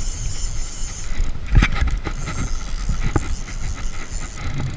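Low, muffled rumble with handling knocks on the kayak and rod, heard through a waterproof camera housing; the loudest is a single thump about a second and a half in, with a smaller knock about three seconds in.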